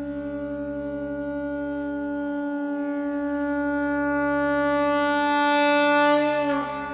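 Conch shell (shankha) blown in one long held note that grows steadily louder, then dips in pitch and fades about six and a half seconds in.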